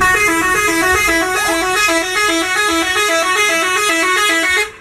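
Indonesian 'telolet' bus horn: a tour bus's multi-tone musical horn playing a quick tune of rapidly alternating notes, which cuts off just before the end.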